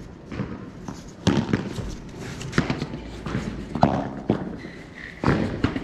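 Padel rally: a padel ball struck back and forth by solid padel rackets and bouncing on the court, about six sharp pops at irregular intervals.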